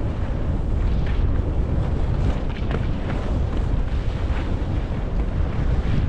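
Wind buffeting the microphone of a camera carried fast downhill by a skier, with the hiss and brief scrapes of skis running over groomed, packed snow.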